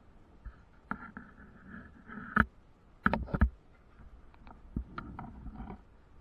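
A series of sharp knocks and clicks, the loudest a cluster about three seconds in, with a fainter squeaking tone between them.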